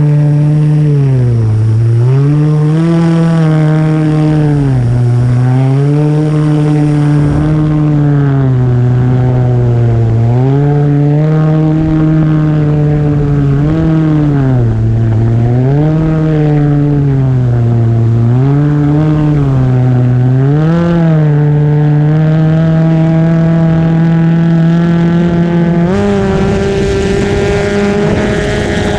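Kawasaki SX-R 1500 stand-up jet ski's four-stroke engine running under way, its pitch rising and falling every second or two as the throttle is worked. It then holds steady for several seconds and steps up higher about three seconds before the end, with more rushing noise.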